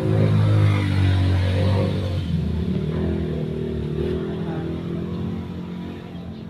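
Suzuki K6A 660 cc three-cylinder engine running, with a slight change in pitch partway through and growing quieter toward the end.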